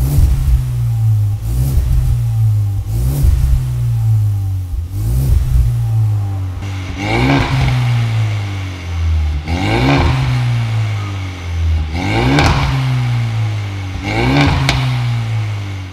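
Ford Mustang EcoBoost's turbocharged 2.3-litre four-cylinder engine being free-revved at a standstill through an Armytrix valved exhaust with the valves open. It gives about eight quick revs, one every two seconds or so, and each rev drops back to idle.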